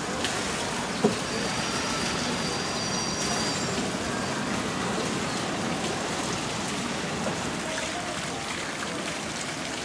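Steady patter and trickle of water, with a single sharp knock about a second in.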